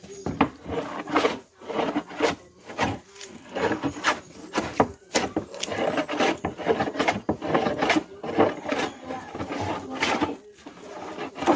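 Vintage hand plane scraping and shaving across wood in quick, repeated short strokes, a few a second, with brief gaps.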